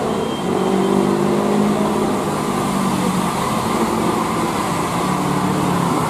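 Large tour bus's diesel engine pulling up a steep hill as it approaches, running in a steady drone with slight changes in pitch, over general traffic noise.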